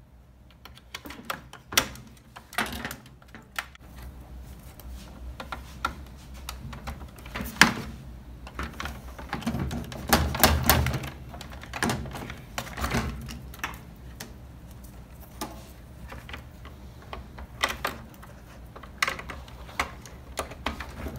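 Plastic wiring-harness connectors being pushed onto a Whirlpool top-load washer's control board: irregular sharp clicks and snaps, with rustling and rubbing of wires and plastic. A longer stretch of pressing and knocking comes about halfway through.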